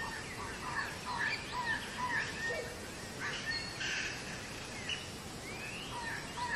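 Many birds calling together: a dense chorus of short, overlapping chirps and rising calls.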